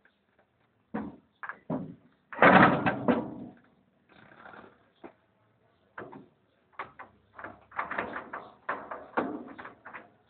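Metal clanks and knocks from the gears and control shafts of a Caterpillar 140B motor grader's opened lever control box being handled, with a louder, longer clatter about two and a half seconds in and a quick run of knocks near the end.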